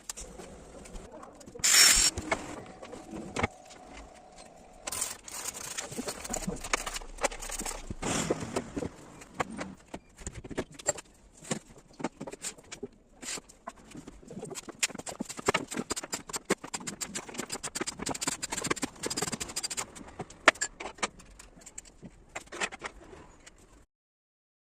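Irregular clicks, knocks and metallic rattles of hardware being handled and fitted, with a loud short hiss about two seconds in followed by a brief steady whine.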